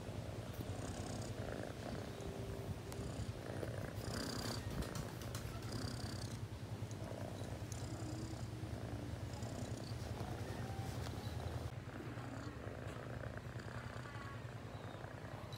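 Domestic cat purring steadily, a continuous low rumble.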